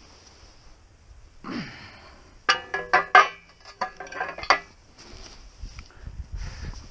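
Steel pallet forks and their stabilizer bar clanking and ringing as they are handled: a run of sharp metal knocks starting about two and a half seconds in and lasting about two seconds.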